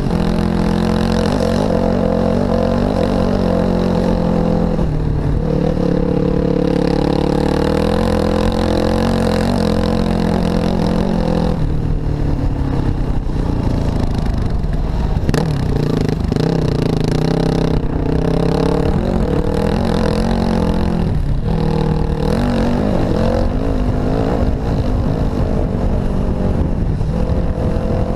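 Off-road vehicle engine running while riding a dirt trail, its pitch rising and dropping several times as the throttle and gears change.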